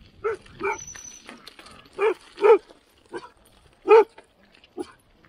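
A short-coated dog barking repeatedly at close range, about seven short barks with the loudest about two and four seconds in.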